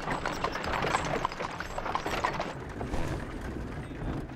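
Horse hooves clopping with a cart rattling: a dense run of irregular knocks over a steady rumble.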